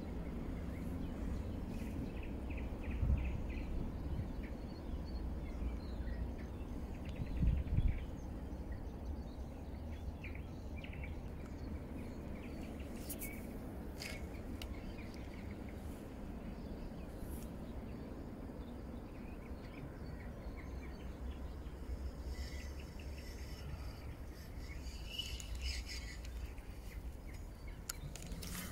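Riverbank ambience: a steady low rumble with birds chirping faintly now and then. Two dull thumps come early, a few sharp clicks near the middle.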